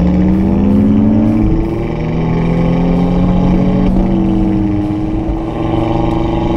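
Audi RS3's 2.5-litre turbocharged five-cylinder engine revving hard under full throttle in second gear on track. The engine note climbs, drops sharply about a second and a half in as the revs fall, then climbs again, with a shift in tone about four seconds in.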